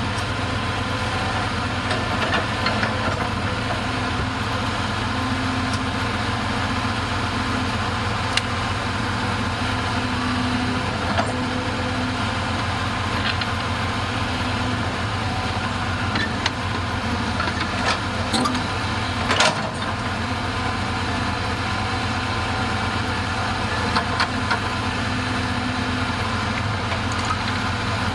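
Bulldozer's diesel engine idling steadily, with a few sharp knocks now and then.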